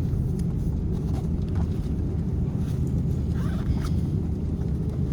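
Steady low rumble inside an Airbus A350 cabin as the airliner taxis after landing, with a few light clicks and rattles.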